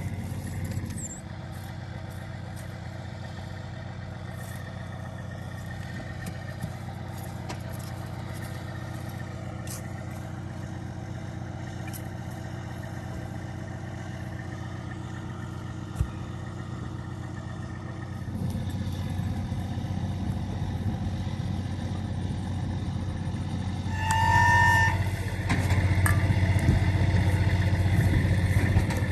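Semi truck's diesel engine running steadily, growing louder about two-thirds of the way through, with a brief high tone about five seconds before the end.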